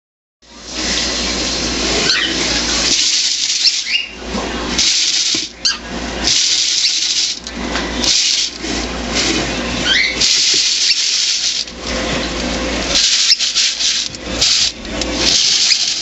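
Popcorn kernels rattling and rushing inside a clear plastic jar, shaken in repeated bursts of a second or two. A cockatiel gives a few short rising squeaks between the bursts.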